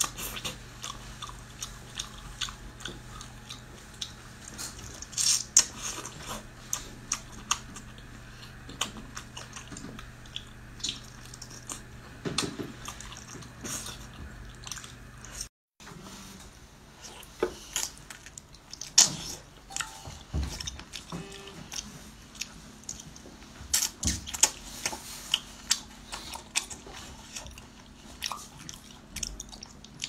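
Close-up eating sounds: wet chewing, sucking and lip smacks as braised baby octopus is eaten, with many short sharp mouth clicks. After a brief cut about halfway, the biting and chewing continue on another braised food.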